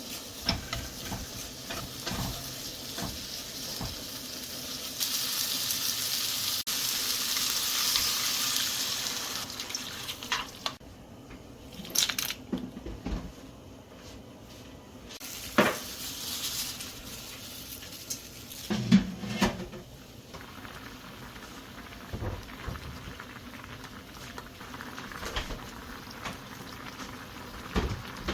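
Water running, loudest about five to ten seconds in, with scattered clinks and knocks of dishes, as in washing up at a sink.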